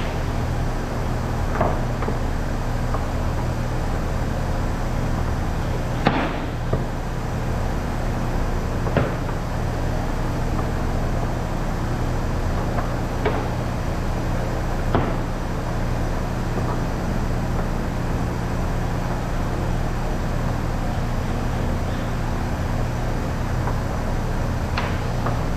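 Steady low hum of running machinery, with scattered sharp knocks and clatters a few seconds apart, the loudest about six seconds in.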